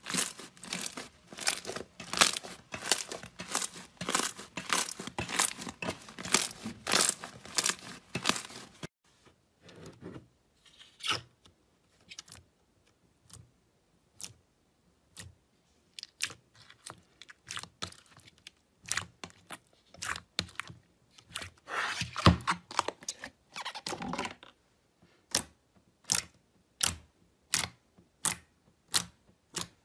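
Hands kneading and squeezing slime. For the first nine seconds fluffy slime makes dense crackling and crunching. After a sudden change come sparse wet clicks and pops from glossy slime being pressed, ending in regular sharp pops about twice a second as the fingers push into it.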